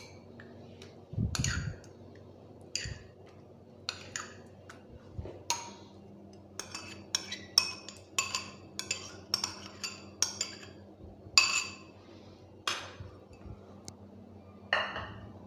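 Cutlery clinking and tapping against a dish and baking tray in many short, irregular clicks as tomato sauce is scooped and spread over pizza dough, with one dull thump about a second in.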